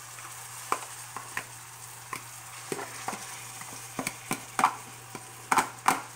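Raw ground beef going into a hot frying pan of sautéed onions, peppers and garlic, with a steady sizzle under irregular sharp clicks and taps as the meat is scraped out of a plastic container with a spoon. The clicks grow louder near the end.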